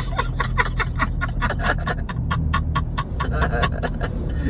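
Vehicle horn sounded in a rapid string of short beeps, about six a second, over a steady low engine hum.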